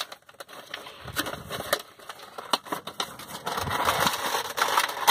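Plastic blister packaging and its cardboard backing crinkling, crackling and tearing as a toy package is pried open by hand, in irregular rustles and sharp clicks that grow busier and louder over the last second and a half.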